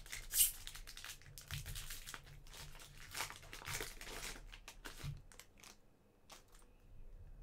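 A soccer card pack's wrapper crinkling and tearing as the pack is opened: a dense run of sharp crackles for about five seconds, then only a few faint crinkles.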